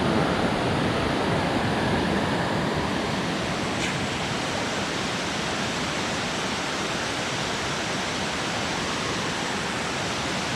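Creek waterfall, a loud steady rush of falling water.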